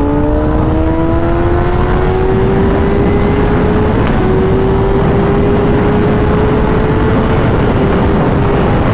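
Sport motorcycle engine pulling under throttle, its pitch rising slowly for about four seconds and then holding steady, under heavy wind rush on the rider's microphone.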